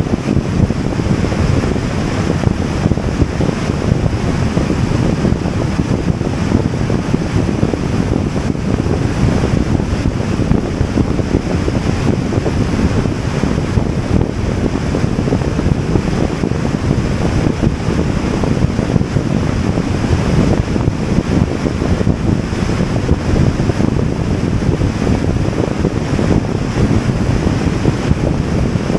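Steady wind rumble on the microphone, mixed with the road noise of a car driving at highway speed.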